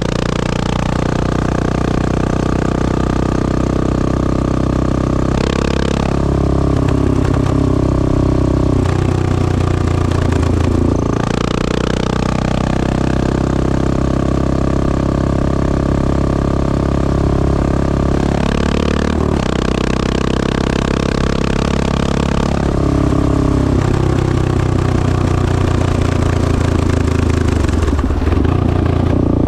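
1986 Honda XL600R's single-cylinder four-stroke engine running through a stainless Devil exhaust, its pitch shifting up and down several times as the revs change, with short louder bursts about 6, 11 and 19 seconds in.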